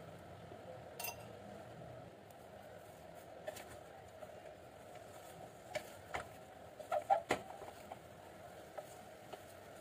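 A wooden spatula knocking and scraping against the sides of an aluminium pressure cooker as raw beef and chopped onions are stirred: scattered light knocks, with a quick cluster of the loudest ones about seven seconds in, over a faint steady hum.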